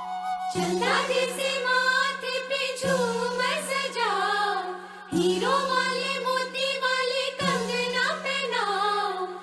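Background music: a sung melody in short repeating phrases, each starting about every two and a half seconds, over a steady low drone.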